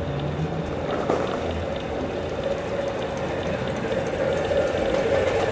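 A 1/8-scale ridable model train running along its track as it approaches, with a steady running noise that grows gradually louder.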